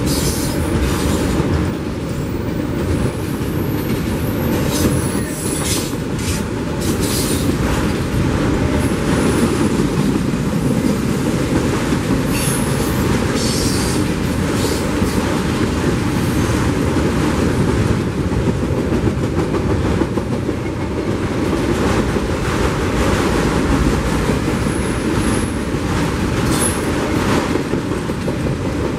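Freight train of autorack cars rolling past: a steady rumble of steel wheels on the rails, with clicking and clanking as the wheels cross the rail joints. A few short, high-pitched wheel squeals.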